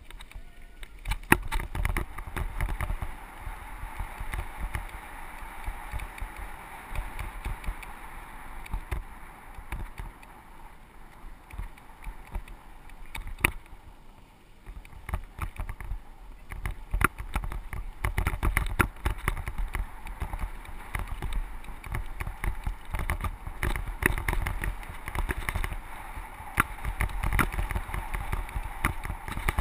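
A mountain bike riding down a dirt trail: the tyres running over dirt and loose ground, with a steady stream of sharp clicks and rattles from the bike jolting over bumps. A heavy rumble of wind buffets the camera microphone, and it eases for a few seconds about halfway through.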